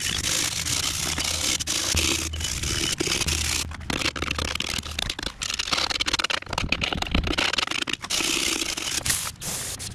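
Steel wire brush scrubbing the rusty steel backing plate of a drum brake in quick back-and-forth strokes, stopping briefly a few times, to clear away corrosion, old anti-seize and debris.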